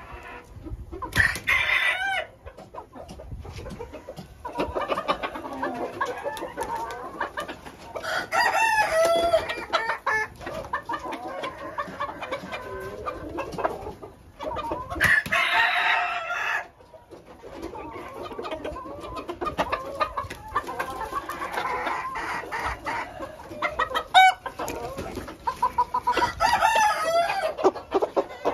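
Chickens in a coop: roosters crow four times, each crow about a second and a half to two seconds long, with clucking and softer calls between.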